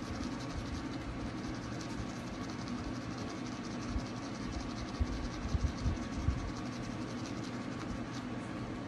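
Battery-powered toothbrush buzzing steadily as it brushes a dog's teeth, with a rapid fine rattle over the hum. A few soft low thumps come about halfway through.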